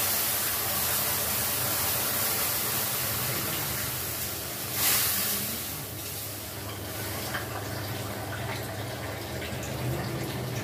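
Water being poured into a hot kadhai, hissing and sizzling as it hits the hot metal, with a louder splash and hiss about five seconds in, then settling to a quieter hiss.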